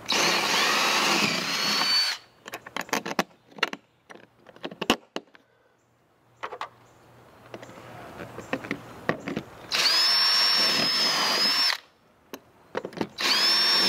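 Cordless drill driving 2.5-inch screws, run in three bursts of about two seconds each with a high motor whine that rises in pitch as it speeds up. Scattered clicks and rattles of handling fill the gap between the first and second bursts.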